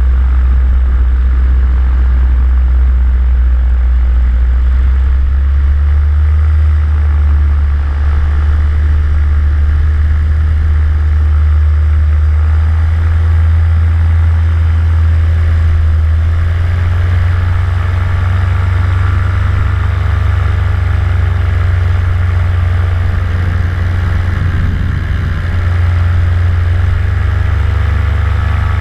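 Vittorazi Moster 185 paramotor's single-cylinder two-stroke engine and propeller running steadily in flight, the pitch stepping up a little past halfway as it revs higher.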